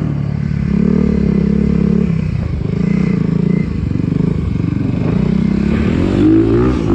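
Kawasaki dirt bike engine running under throttle. Its pitch steps up and down as the rider works the throttle over loose dirt, then rises in a rev near the end.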